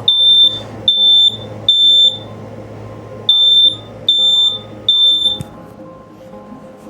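Household smoke alarm sounding on its test button: two rounds of three high-pitched beeps, each about half a second long, with a pause between rounds (the temporal-3 evacuation pattern). It stops after about five seconds.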